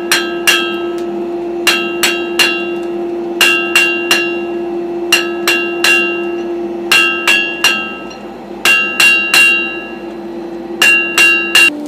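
Blacksmith's hand hammer striking a red-hot bar on an anvil, in quick runs of three or four blows with short pauses between, each blow followed by a bright metallic ring. A steady hum runs underneath.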